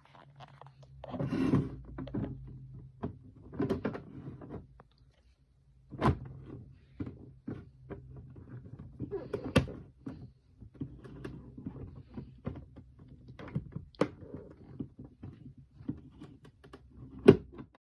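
Plastic containers being handled and set down: scattered knocks, clicks and thunks with rustling between them, and a sharp knock near the end, over a steady low hum.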